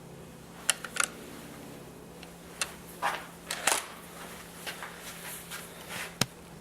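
Pellet rifle being handled and readied to fire: a string of sharp mechanical clicks and clacks, several in the first four seconds and a single sharp one near the end.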